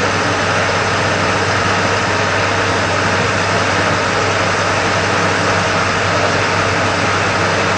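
Fire engine running steadily, most likely driving its pump: a low engine hum under a loud, even hiss.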